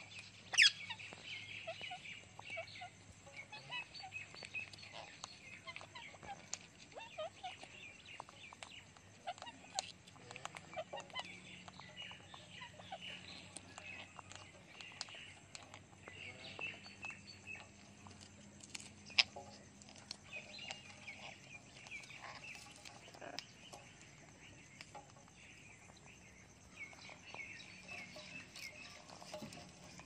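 Parrots chattering while they feed, with many short, high calls scattered through, and a few sharp clicks, the loudest about half a second in and another about two-thirds of the way through.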